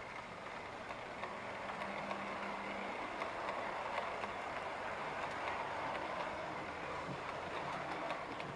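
OO gauge model train running past on its track: a steady whirr of wheels rolling on the rails, with faint ticks.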